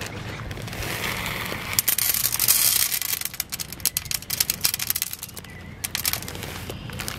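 Dry popcorn kernels poured from a plastic bag into a small non-stick saucepan with a little oil in it: a rapid patter of kernels hitting the pan, heaviest about two to three and a half seconds in, then thinning to scattered clicks.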